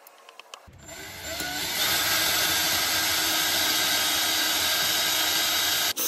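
Ryobi cordless drill driving a 12-inch long drill bit down through stacked wooden boards. It starts about a second in, comes up to a steady full-speed run and dips briefly just before the end.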